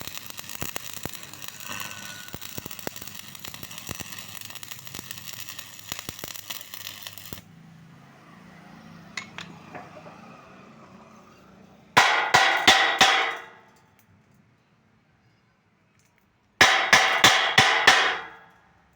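Arc (stick) welding: a steady crackle and sizzle of the arc for about seven seconds, then it stops. Later come two quick runs of five or six sharp strikes each.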